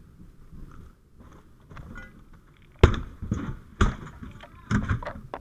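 Rustling of branches and vines, then three heavy thuds about a second apart.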